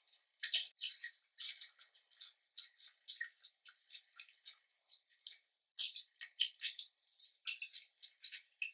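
Slime being mixed and squeezed, making quick wet clicks and pops in an uneven run of about three or four a second.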